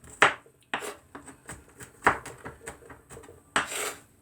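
Knife chopping peeled garlic cloves: a handful of sharp, irregularly spaced knocks, then a longer scraping sound near the end.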